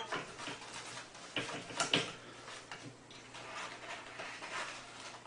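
Faint household knocks and taps from cats moving about a small room, with a few sharper taps about one and a half to two seconds in, over thin room hiss.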